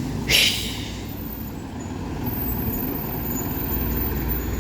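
Bus engine running with a steady low rumble, with one short, sharp hiss of air from the brakes about a third of a second in.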